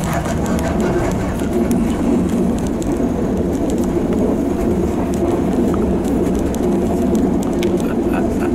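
Passenger train running along the track, heard from inside the carriage: a steady rolling rumble with faint scattered ticks.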